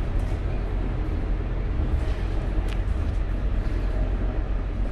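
Scania K230UB city bus's five-cylinder diesel engine running as the bus drives along, heard from inside the passenger cabin as a steady low rumble mixed with road noise. There is one short click about two and a half seconds in.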